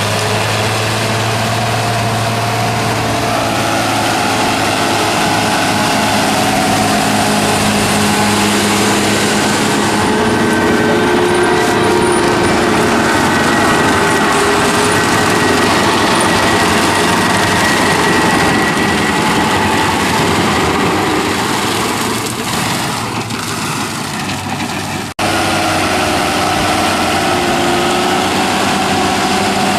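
Large tractor's diesel engine running steadily under load, with the stripe tillage implement working the soil behind it. Near the end the sound drops briefly and breaks off sharply, then the engine runs on.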